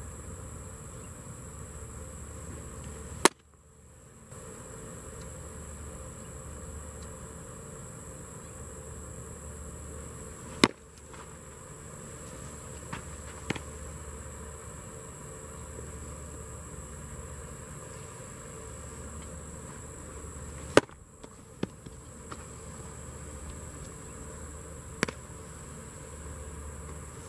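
Baseball smacking into a catcher's mitt: three loud, sharp pops several seconds apart, with a few fainter taps in between. A steady high insect drone runs underneath.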